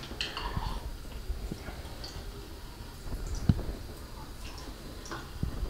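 Faint water trickling at the sink drain, with scattered small ticks and taps from the endoscope probe and cable being worked into the drain; one sharper tap about three and a half seconds in.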